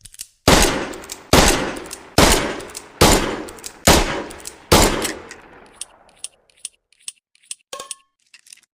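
Smith & Wesson Model 10 HB .38 Special revolver firing six shots in steady succession, a little under a second apart, each shot ringing out and fading before the next. After the last shot come a few light metallic clicks and ticks.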